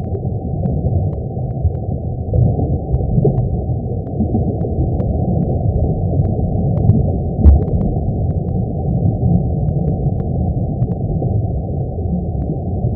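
A "sun" sound effect: a deep, steady rumble of low noise with nothing above a muffled cutoff, and faint scattered crackles over it. It swells slightly with a short louder surge about seven and a half seconds in.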